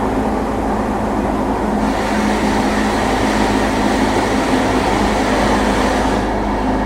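E233-2000 series EMU running at speed, heard from inside the motor car: a steady rumble with a steady growling hum, the abnormal noise this train makes at mid-to-high speed. The hissier running noise grows about two seconds in.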